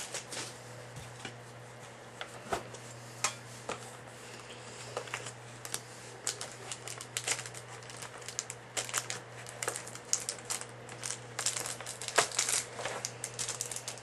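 Plastic wrap crinkling and a metal trading-card tin being handled and opened: a run of light, irregular crackles and clicks.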